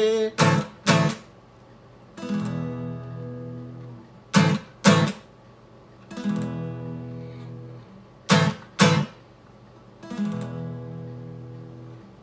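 Acoustic guitar strummed in a repeating figure, three times over: two quick, sharp strums, then a chord left to ring and slowly fade.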